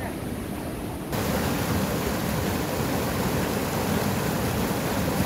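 Fast river rapids rushing over rocks: a steady hiss and rush of white water. About a second in it becomes louder and brighter.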